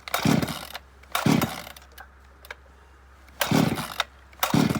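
Recoil starter cord of a Chinese 9800 chainsaw yanked four times on a cold start with the choke on: two pulls, a pause, then two more. The engine turns over with each pull but does not catch.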